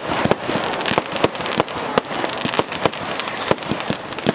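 Fireworks going off: a continuous crackling hiss with sharp pops and bangs, several a second.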